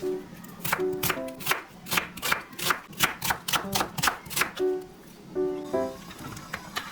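Knife chopping food on a cutting board in a quick, even run of about four strokes a second that stops a little past halfway, over background music.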